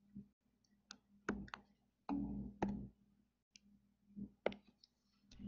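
Scattered light clicks and taps, about a dozen at irregular intervals, from a pointing device being used to pick a pen tool and write on screen, with a faint low hum in places.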